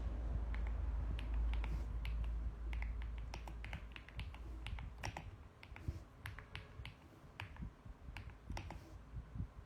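Typing on a mechanical keyboard: irregular key clicks, several a second, thinning out after about six seconds. A low rumble runs under the clicks for the first few seconds.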